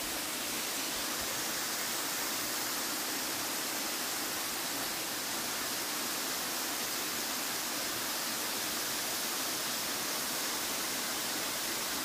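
Steady rush of a waterfall, its water spilling down a rock face into a pool.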